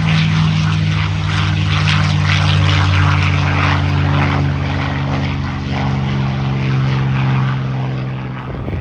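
Propeller airplane's engine droning loudly and steadily overhead, sinking slightly in pitch, then cutting off abruptly near the end.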